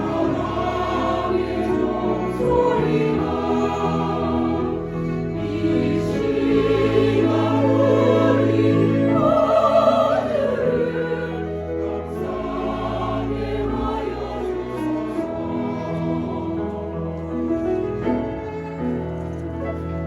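Church choir singing a sacred anthem with instrumental accompaniment under long held low notes. It swells to its loudest about halfway through, then continues more softly.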